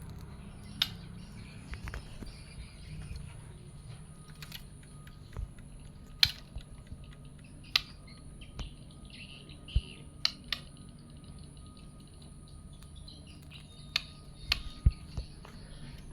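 White-rumped shama giving short, sharp call notes every second or few, with bits of soft twittering between them. A steady high-pitched whine runs underneath.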